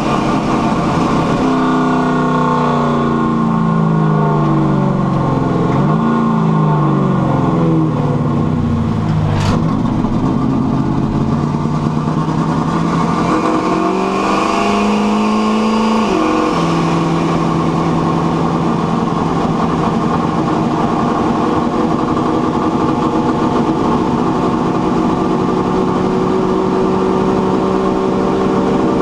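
Carbureted car engine with a rear-mounted turbo being driven under boost, its revs swinging up and down, with a sharp click about nine seconds in. A second pull climbs in revs and cuts off suddenly about sixteen seconds in, then the engine settles to a steady drone.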